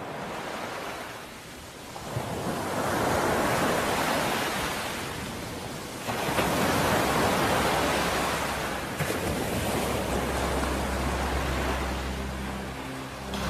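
Sea waves washing ashore, the surf noise swelling and easing in long surges. About ten seconds in, a low steady engine drone joins it.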